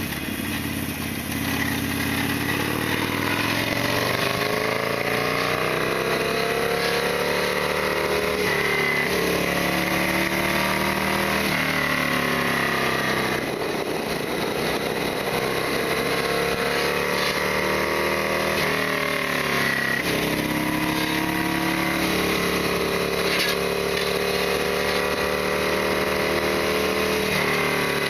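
Harley-Davidson Sportster XL1200R's V-twin engine running under way, its revs climbing and falling back several times.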